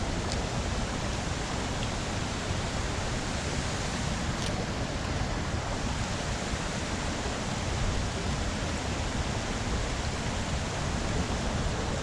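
Steady rushing of creek water flowing past.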